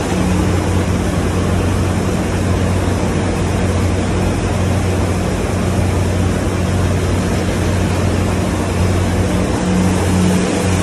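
HELIDA 15ST combined seed cleaner running while it processes wheat: a steady low electric hum under an even, broad rushing noise of the machine and the grain moving through it.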